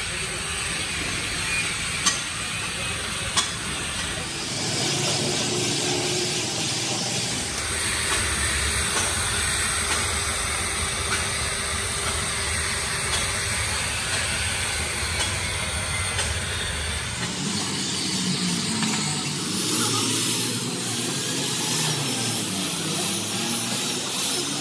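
Electric angle grinder running with an abrasive disc pressed against a steel tractor wheel rim, grinding off old paint and rust as a steady hissing grind. Its sound changes a few times, and there are two sharp ticks about two and three and a half seconds in.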